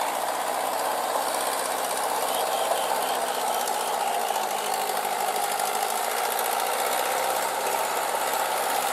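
Tractor diesel engine running steadily with a knocking clatter as the tractor drives on steel cage wheels through a flooded paddy field.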